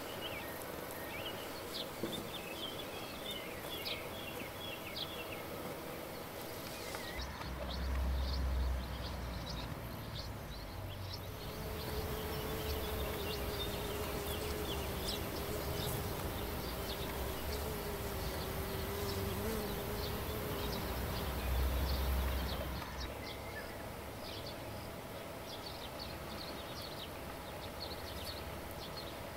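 A flying insect buzzing for several seconds in the middle, its pitch wavering, among scattered short high chirps and two brief low rumbles.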